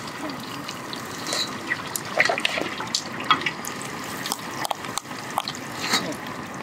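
Hot oil sizzling and bubbling in a large iron wok as puli pitha deep-fry, stirred with a steel slotted ladle, with frequent sharp crackles and pops.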